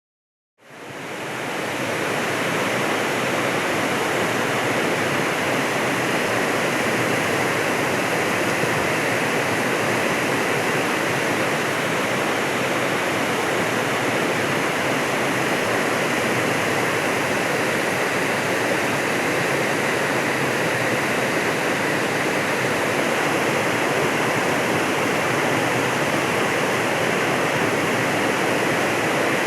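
Eryuda Falls, a wide waterfall with little drop, rushing steadily. The sound fades in over the first couple of seconds and then holds unchanged.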